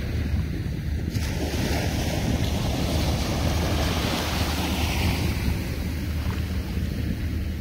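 Wind buffeting the microphone in a steady low rumble over the wash of small waves on open sea water, with a hiss that swells about a second in and fades away by about five seconds.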